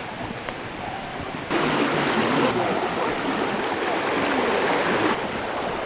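Running stream water, a steady rushing that starts abruptly about one and a half seconds in, after a quieter stretch of faint ambient noise.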